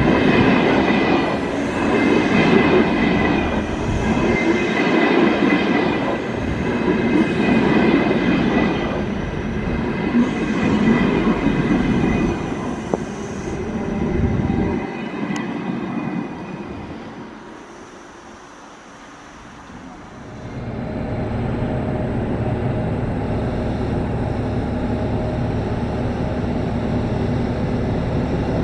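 Train running through a station: loud rail and wheel noise with a high steady whine over it for the first half, fading after about fifteen seconds. A steady lower hum takes over about two-thirds of the way in.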